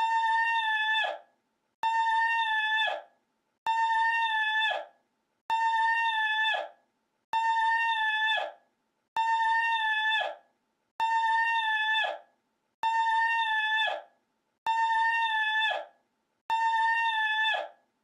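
The same short, high-pitched held cry looped over and over: about ten identical calls, each a little over a second long, that drop in pitch as they cut off, with a short silent gap between them.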